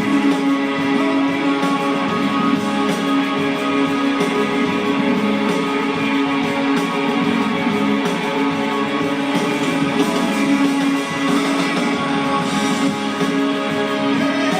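Live rock band music led by strummed electric and acoustic guitars over a steady, sustained instrumental bed, with no vocals.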